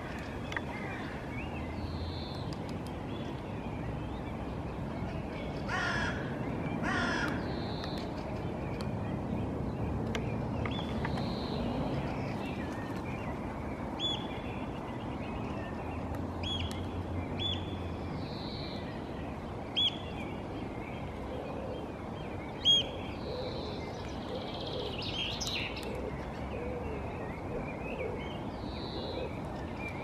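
Two harsh bird calls about a second apart, some six seconds in, over steady outdoor background noise. Later comes a run of short, sharp ticks, the loudest two a few seconds apart near the middle.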